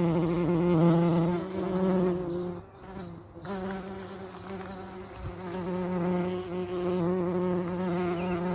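A bee buzzing in flight: a steady, pitched buzz that drops away briefly about three seconds in, then returns.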